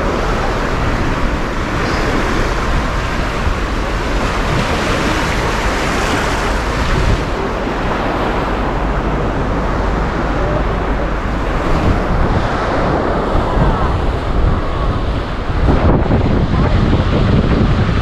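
Small waves washing onto a sandy beach, with wind buffeting the microphone; the wind rumble gets heavier near the end.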